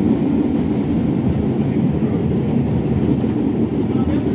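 R68A subway car heard from inside while running along the track: a steady, loud low rumble of wheels and running gear.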